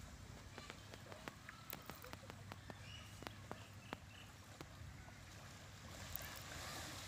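Faint beach ambience: small waves washing softly on a sandy shore over a low rumble of wind, with scattered small sharp clicks through the middle.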